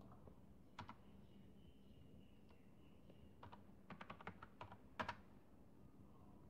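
Computer keyboard being typed on, faint key clicks: a single keystroke about a second in, a quick run of keystrokes from about three and a half to nearly five seconds in, and one sharper click at five seconds.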